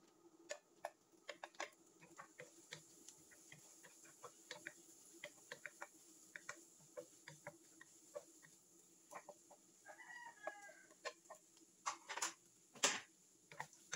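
Wooden spatula tapping and scraping against a nonstick wok during stir-frying: a string of light, irregular clicks over a steady low hum, with two louder knocks near the end.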